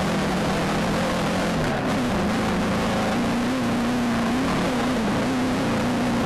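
Volkswagen Beetle off-road race car heard from inside the cab, its engine running hard and steady under a loud rush of wind, dirt and rattle. About two seconds in the engine pitch dips briefly, then climbs back and holds with a slight wavering.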